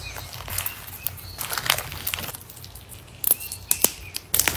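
Granule-coated crunchy slime being squeezed, stretched and pressed by hand: irregular crackling with sticky clicks and pops, a denser, louder run of crackles near the end.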